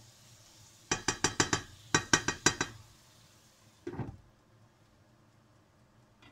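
Spatula knocked rapidly against a frying pan: two quick runs of about five taps each. Then a single clunk about four seconds in as a glass lid is set on the pan.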